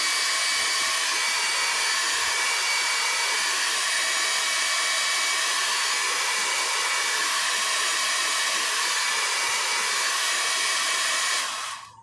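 Small handheld hair dryer blowing steadily, an even rush of air with a faint high whine from its motor, used to heat a phone screen's adhesive; it fades out near the end.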